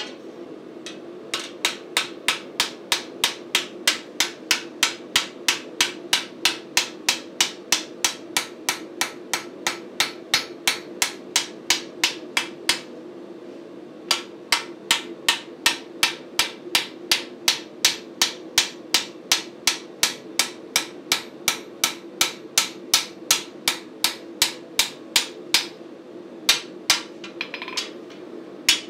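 Hand hammer striking a red-hot flat steel bar on an anvil, a steady run of blows at about three a second, broken by three short pauses: near the start, about halfway through and near the end.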